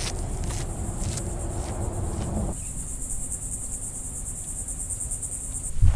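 Insects trilling in dune grass: a steady, high-pitched, rapidly pulsing buzz. A low rumble underneath stops about two and a half seconds in, leaving the trill clearer.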